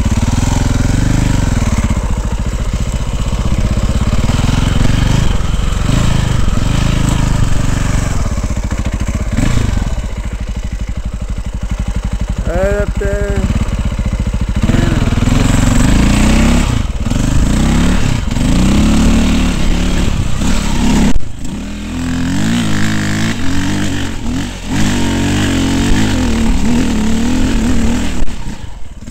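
Dirt bike engine running hard, its note rising and falling again and again as the throttle opens and closes on a rocky hill climb, with a brief sharp cut about two-thirds of the way through.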